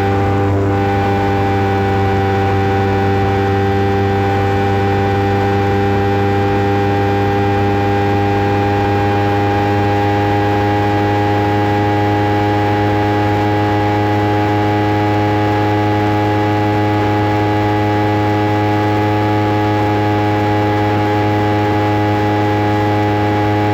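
Kawasaki Ninja 300's parallel-twin engine with an Akrapovic exhaust, held at high, nearly steady revs at speed, its pitch creeping slightly upward. It is heard from inside the bike's rear seat compartment.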